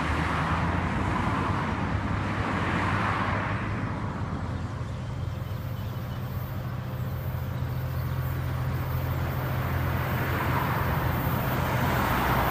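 Road traffic passing, its rushing noise swelling, fading after a few seconds and building again near the end, over a steady low engine drone.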